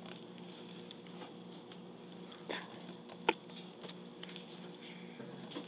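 Faint dabbing and rubbing of a small paintbrush on a painted clay pencil grip, with small scattered ticks and one sharper tick about three seconds in, over a steady low background hum.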